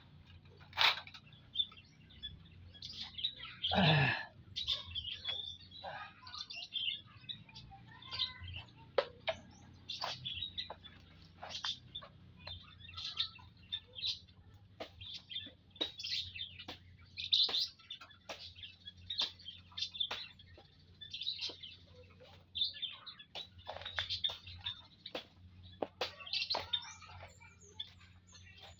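A group of munias (emprit finches) chirping, many short high chirps overlapping one another, with one louder sweeping call about four seconds in, over a faint steady low hum.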